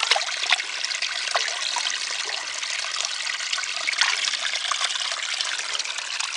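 A shallow stream trickling over rocks, with hands rinsing in the flow and making small splashes over the steady trickle.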